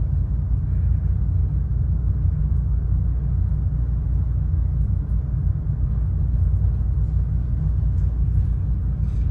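Steady low rumble, even throughout, with a few faint ticks over it.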